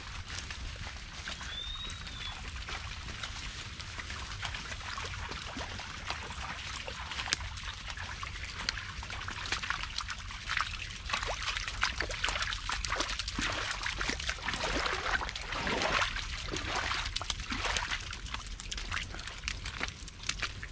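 A flock of sheep and a walker moving over wet, stony, muddy ground: a dense patter of small hoof and footstep clicks and squelches that gets busier about halfway through. There is one short high chirp about two seconds in.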